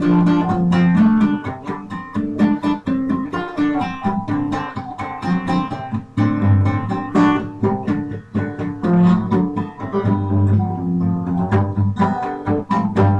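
Background music: a quick plucked guitar line over a bass line.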